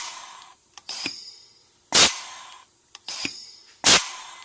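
Air-powered pop rivet gun fired repeatedly, five times: each pull ends in a sharp snap followed by a short fading hiss of exhaust air. The tool is cycling through a full stroke, a sign it is working properly.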